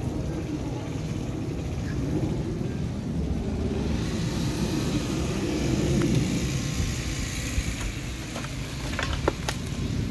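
Low, steady rumble of road traffic, with a few sharp clicks near the end.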